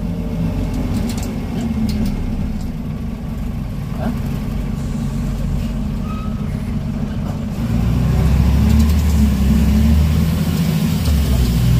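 Scania N94UB bus's rear-mounted diesel engine and drivetrain heard from inside the saloon while the bus is driving, a steady low drone that grows louder about two-thirds of the way through.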